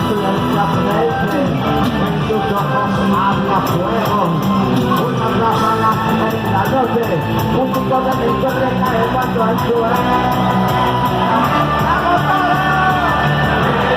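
Loud live cuarteto band music playing steadily, with a driving low beat and many instruments together.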